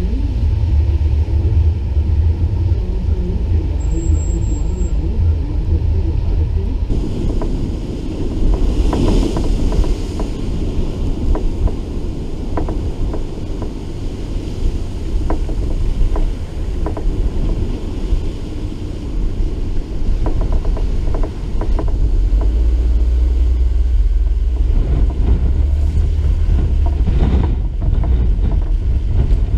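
Steady low rumble of wind buffeting the microphone, together with a car's running and tyre noise on a wet, sand-covered road, with scattered clicks through it.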